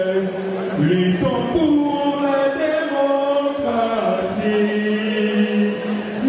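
Slow, solemn singing in long held notes, moving from one sustained pitch to the next about every second or two.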